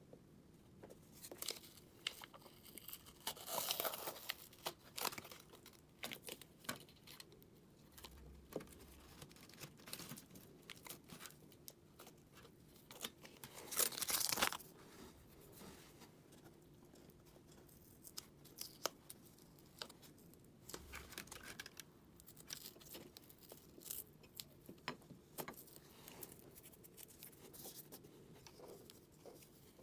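Cured body filler being scraped and pared off a wooden door casing by hand: scattered light scrapes and clicks, with two longer, louder scraping runs about four and fourteen seconds in.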